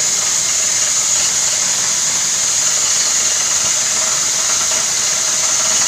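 Borewell drilling rig and its air compressor running steadily: constant engine noise under a strong continuous hiss.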